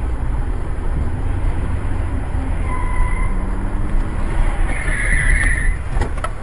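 Car cabin rumble of engine and tyre noise while driving slowly in city traffic, recorded by a dash camera. A brief high sound comes about five seconds in.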